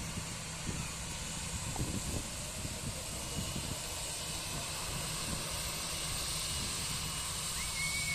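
Airliner's engines running steadily at a distance during its takeoff: a continuous rushing hiss over an uneven low rumble.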